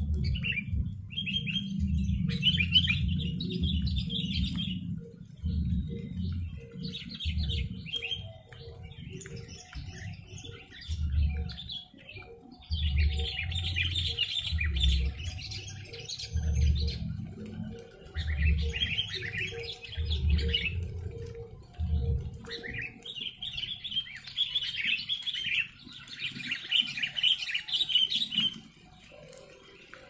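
Sooty-headed bulbuls calling in repeated bursts of a second or two, every few seconds. A low thudding rumble runs beneath them and stops about two-thirds of the way through.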